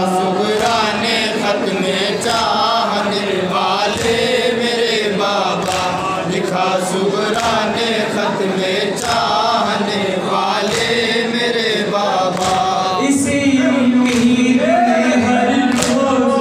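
A group of men chanting a noha, an Urdu lament, in unison into a microphone, in long drawn-out phrases. Regular sharp slaps of hands beating on chests (matam) keep time under the chant.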